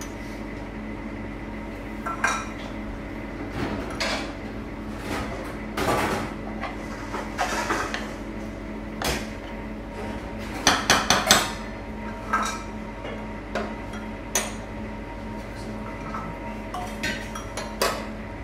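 Metal spoon scraping and clinking against a frying pan as diced chicken and tomato are stirred, in irregular knocks and scrapes; a quick run of four knocks a little before the middle is the loudest. A steady hum runs underneath.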